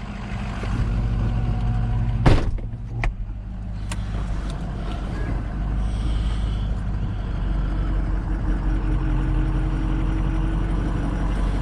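Truck engine running steadily, with one sharp knock about two seconds in and a couple of lighter clicks just after.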